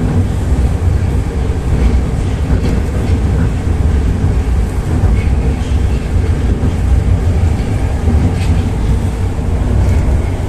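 Metro car of type 81-760A 'Oka' running at speed between stations, heard from inside the car: a steady, loud, low rumble of the wheels on the rails and the running gear.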